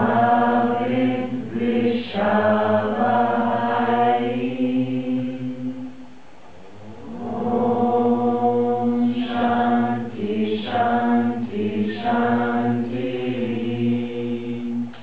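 A group of voices chanting a mantra together in unison on long held notes, in two phrases with a brief pause for breath about six seconds in.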